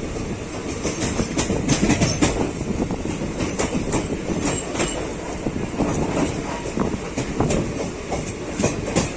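Passenger train running on the rails, a steady rumble with irregular clicks of the wheels passing over rail joints.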